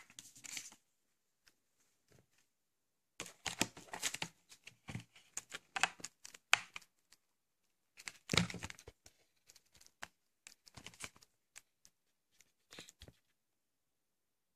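Plastic packaging being handled: bursts of crinkling and rustling, with a louder burst about eight seconds in, then scattered light clicks and taps of plastic.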